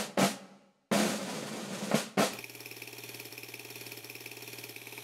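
Intro sound design: a few sharp, ringing drum-like hits, then a quieter, steady, fast rattle from a little over two seconds in.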